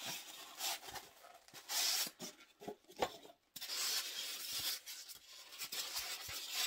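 Foam packing wrap being rubbed and pulled off a small object, rustling in two long stretches with a few light clicks and knocks of handling between them.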